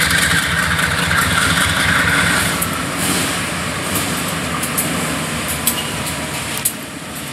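Diesel-electric freight locomotives running as they pull out, a steady heavy engine sound that is loudest at first and slowly fades as they move off.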